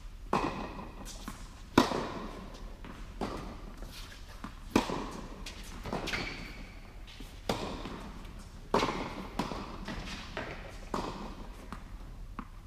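Tennis rally on an indoor court: a tennis ball is struck by rackets and bounces on the court about every second and a half. Each sharp pop echoes round the large hall, and a couple of short high squeaks come in between.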